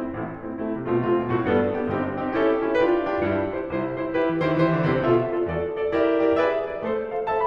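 Background piano music, a steady flow of notes over lower bass notes.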